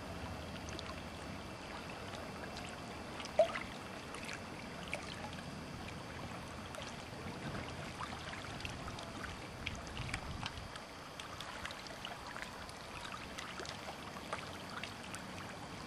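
Water lapping and splashing around a small boat's hull, a steady wash broken by many small irregular splashes, with one sharp loud click about three and a half seconds in.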